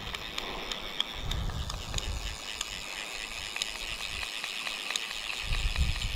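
Outdoor ambience: wind buffeting the microphone in gusts, strongest in the middle and near the end, over a steady high-pitched drone, with faint scattered ticks.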